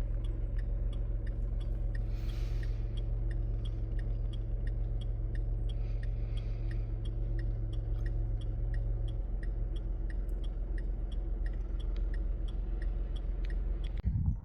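Car engine running steadily, heard from inside the cabin, with a turn-signal indicator ticking evenly about three times a second. The engine note drops about nine seconds in, and a louder low rumble starts near the end.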